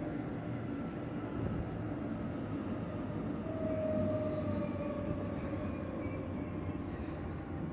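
Sydney Trains double-deck electric train standing at the platform close by: a steady low rumbling hum from the train, with a brief faint whine about halfway through.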